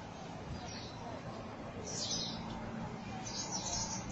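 A flock of small birds chirping in a tree, in scattered high bursts of calls that grow busier near the end, over a steady background hum.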